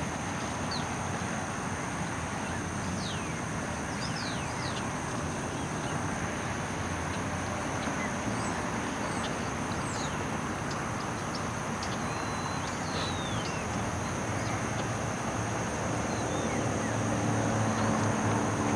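Birds chirping now and then over a steady rush of outdoor background noise. In the last few seconds an engine hum grows louder, as a vehicle comes closer.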